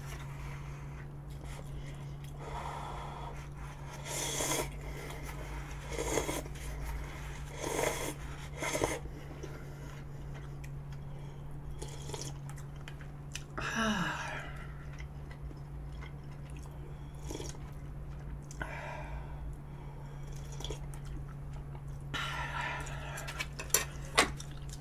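Slurping and sipping from a bowl of noodles and broth: a string of short, noisy slurps a few seconds apart, with a few light clicks near the end as the bowl is set down.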